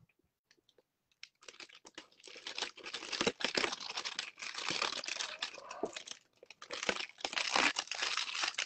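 Cellophane shrink wrap on a cardboard box being slit with a snap-off utility knife and peeled away, crinkling and crackling continuously from about a second and a half in.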